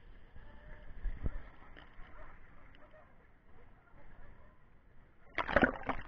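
Pool water sloshing and lapping around a camera held at the surface, over a steady hiss from a small cascade pouring into the pool. Near the end there is a loud, brief splash as the camera dips under the water.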